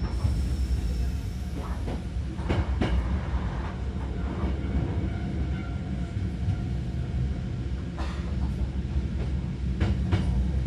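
Hankyu 3000 series electric train running, heard inside the passenger car: a steady low rumble of the traction motors and running gear. A few sharp clacks come about two and a half seconds in and again near the end.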